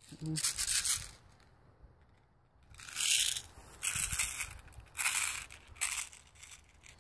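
Footsteps crunching through dry fallen leaves, five or six steps about a second apart.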